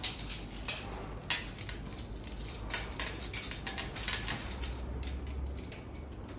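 Irregular sharp clicks and clatter from a metal tape measure being pulled out and set against a chair to measure its seat height, loudest in the first four seconds.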